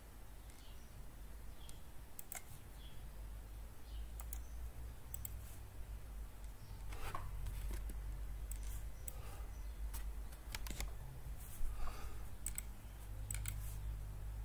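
Computer mouse clicks, many of them at irregular intervals, over a low steady hum.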